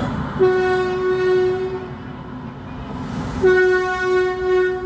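Indian Railways locomotive horn sounding two long blasts, each about a second and a half, over the low rumble of a train on the tracks.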